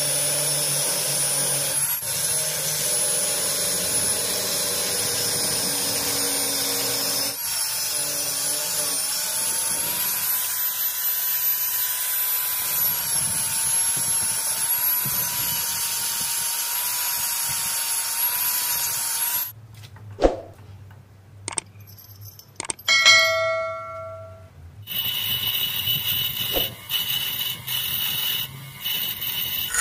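Angle grinder cutting into a steel tube: a steady high whine that stops about two-thirds of the way through. A few knocks and a short metallic ring follow, then a bench grinder runs while a small steel part is ground on its wheel.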